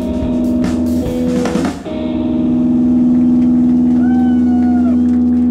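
Garage rock band playing live: a loud electric guitar chord held and left ringing, with a dense crash of drums and cymbals in the first couple of seconds. A short high gliding note sounds over it about four seconds in.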